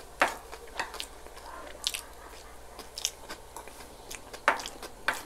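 Close-miked chewing and mouth sounds of people eating shawarma rice and siomai, with a handful of short, sharp smacks and clicks scattered through.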